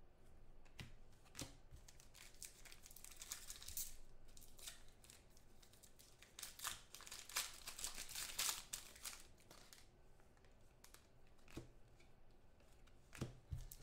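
Foil wrapper of a Select football card pack crinkling and tearing as it is ripped open by hand, in faint bursts that are busiest about halfway through, with a few light clicks from the cards being handled.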